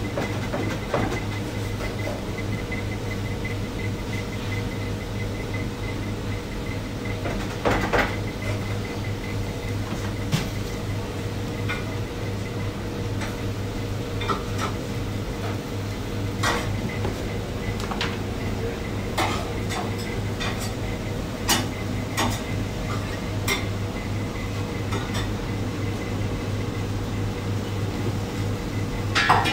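Steady hum of kitchen equipment, with scattered light clinks and clatters of dishes and utensils, a louder clatter about eight seconds in and another near the end.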